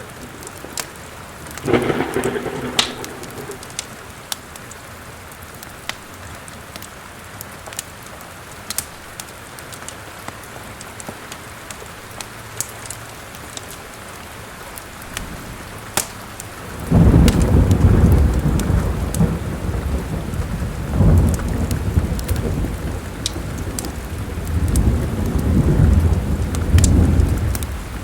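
Steady rain with the sharp crackles and pops of a wood fire in a fireplace. A short thunderclap comes about two seconds in, and from about halfway a long, low thunder rumble swells and fades several times.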